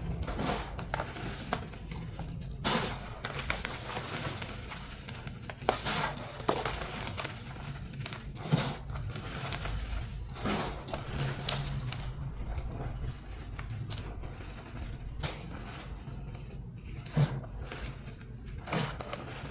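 Dyed, pasted gym chalk blocks being crushed, giving irregular crunches and crackles with a few sharper cracks, the loudest about six seconds in, near nine seconds in and about seventeen seconds in.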